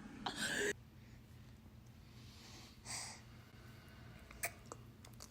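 A baby's short breathy sniff near the start, then near silence broken by a fainter breath about three seconds in.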